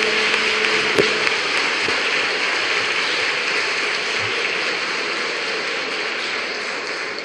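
An audience applauding, with the clapping slowly dying away near the end. There is one sharp click about a second in.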